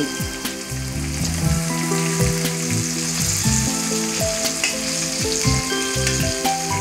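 Hot oil sizzling steadily in a frying pan as boiled drumstick (moringa) pieces fry with sliced onions and green chillies. Background music of held notes plays over it.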